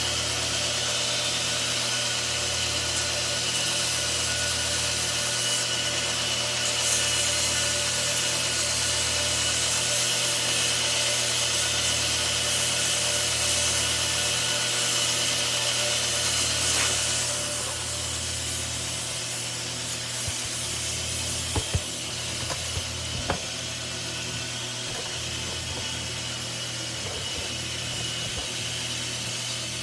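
Steady abrasive sanding noise, a continuous hiss with a faint hum beneath. It becomes somewhat quieter a little past halfway, and a few light knocks follow.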